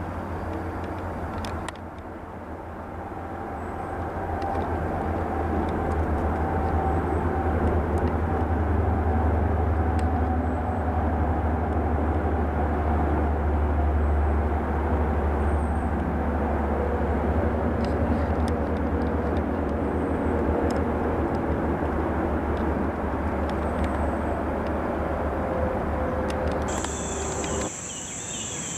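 A steady low rumble of a distant engine, swelling over the first few seconds and then holding. Near the end it stops suddenly and a steady high chirring of insects takes over.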